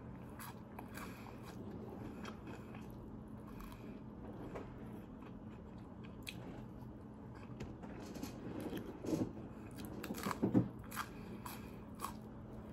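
Close-miked chewing and biting of fried chicken nuggets: soft, wet mouth sounds and small clicks, with a few louder ones about nine to eleven seconds in. A faint steady hum lies underneath.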